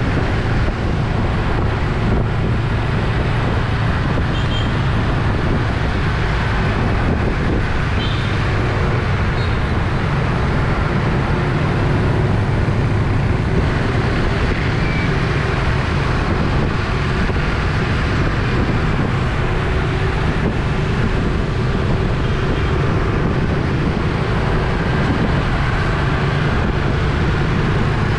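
Motorbike riding in traffic, heard from a camera mounted on the bike: steady engine and road noise with wind on the microphone.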